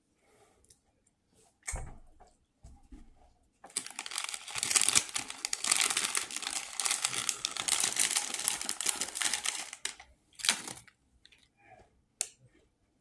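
Shortbread cookie packaging being handled, crinkling continuously for about six seconds starting around four seconds in. There are a few short knocks or taps before and after it.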